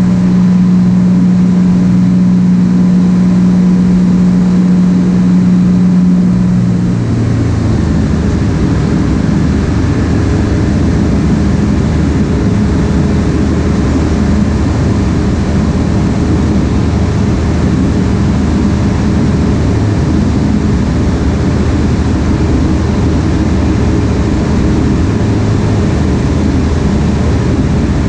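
Ikarus C42 microlight's engine and propeller running steadily in flight, heard inside the open-framed cockpit with airflow noise. About seven seconds in the engine note drops to a lower, slightly quieter pitch and holds there.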